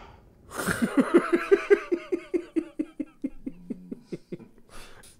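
A man laughing: a long run of quick 'ha' pulses, about five a second, that start after a sharp breath and sink lower in pitch near the end.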